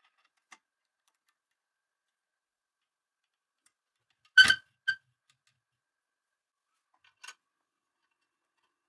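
A few sharp metallic clicks as a knurled metal handwheel is fitted onto the end of a CNC router's lead screw against its bearing block. The loudest are two clicks half a second apart midway, as the wheel seats. A fainter click follows about seven seconds in, as a hex key goes to the wheel's set screw.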